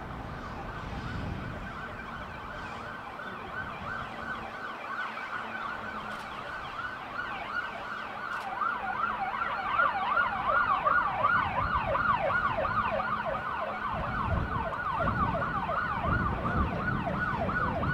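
Emergency vehicle siren in a fast, repeating rise-and-fall wail, growing louder from about halfway through as the responding units approach.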